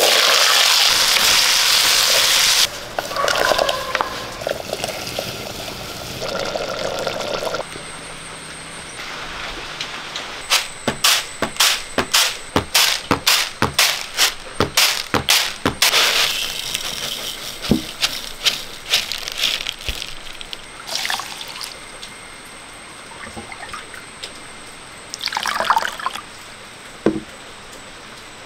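A run of cooking sounds. First, a loud rattling rush as shallots tumble from a wooden bowl into a metal pan. Then, for several seconds, about two or three sharp taps a second as rice is tossed on a bamboo winnowing tray, and near the end water splashing as rice is rinsed in a clay bowl.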